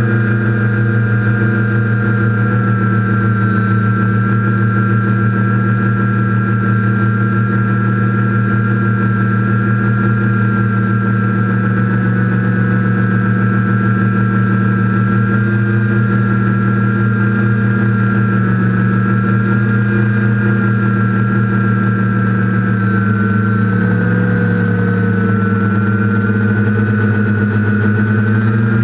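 TBS Discovery quadcopter's electric motors and propellers humming steadily, the pitch wavering slightly as the throttle changes, most noticeably near the end.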